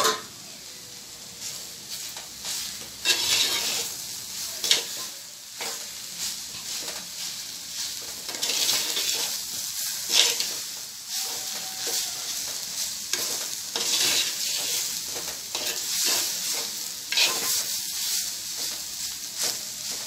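Slotted spatula stirring and scraping grated jackfruit and coconut around a clay pot, in repeated irregular strokes, over a steady light sizzle of the stir-frying food.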